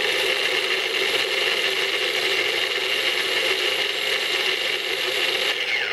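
Electric mini food chopper running steadily as its blade chops parsley and garlic cloves. Near the end it is released and the motor winds down with a falling whine.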